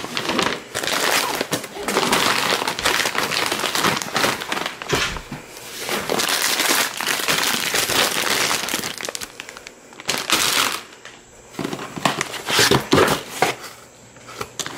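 Crinkling and rustling of something being handled, in irregular crackly stretches, quieter for a moment a little after the middle.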